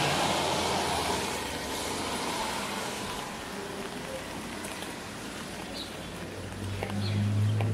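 Street traffic on a wet road: a passing car's tyre hiss fades over the first couple of seconds, and a low vehicle engine hum swells near the end.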